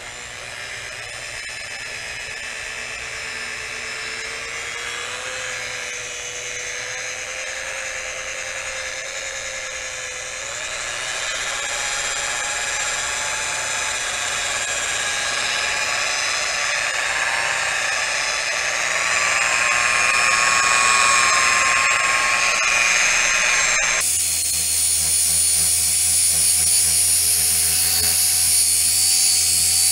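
Handheld rotary polisher running with its foam pad buffing compound into a wet-sanded painted fender. The motor whine comes up right at the start, climbs in pitch a couple of times, and changes abruptly about 24 seconds in.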